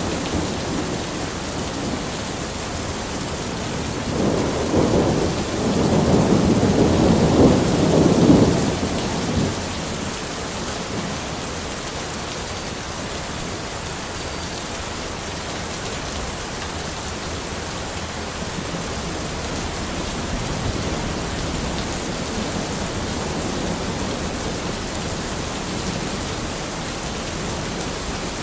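Steady rain falling in a forest, with a roll of thunder rumbling from about four to nine seconds in.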